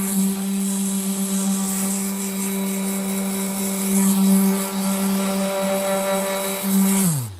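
Handheld electric power tool running at a steady high speed while stripping bark from a walnut board, then switched off near the end, its pitch falling as it winds down.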